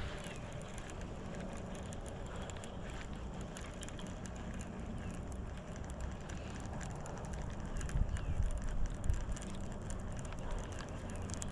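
Wind rumbling on the microphone, with scattered light clicks and handling noise; the rumble grows gustier about two thirds of the way in.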